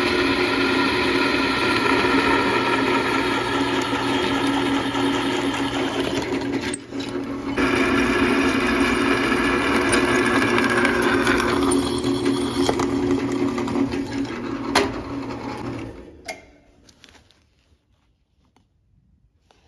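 Drill press running as its twist bit cuts a hole through steel plate, a steady motor hum. About sixteen seconds in the motor is switched off and runs down to near quiet.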